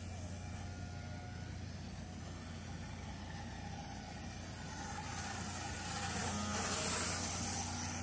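Electric motor and propeller of a micro RC ultralight airplane buzzing as it flies, growing louder from about five seconds in and loudest near seven seconds as it passes closer, over a steady low hum.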